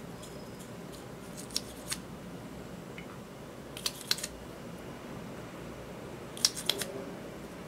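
Short plastic clicks and taps from a lip gloss tube and its applicator wand being handled, coming in three quick clusters a couple of seconds apart, over a steady low background hum.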